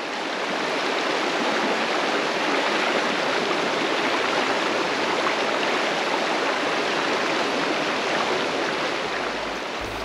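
Shallow rocky river rushing steadily over boulders and stones.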